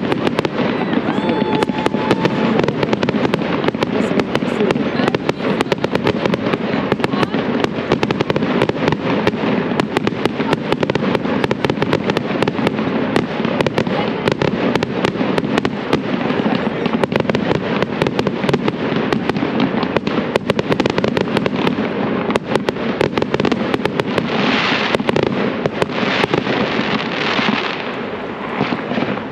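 A dense, unbroken crackle of many sharp pops and cracks, several a second, over a steady din.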